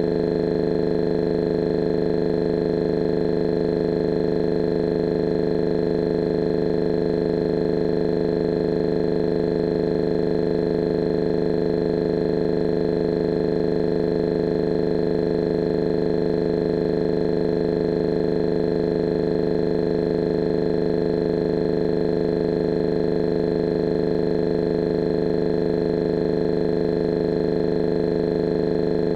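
A loud, steady electronic hum made of several held tones, strongest in the low-middle range, with no change or break.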